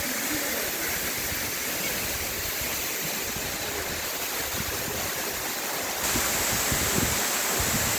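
Steady rush of falling water at a waterfall, a continuous noisy hiss that gets a little louder about six seconds in.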